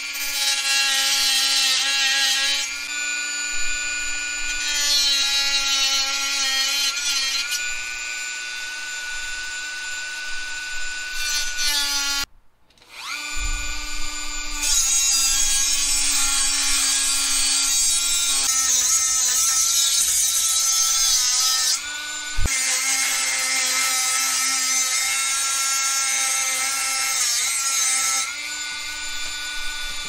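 Dremel rotary tool with a cut-off wheel running at high speed and cutting into the ITX case's frame and perforated metal mesh panel: a steady high whine with a grinding hiss. It stops about 12 seconds in and starts again a second later.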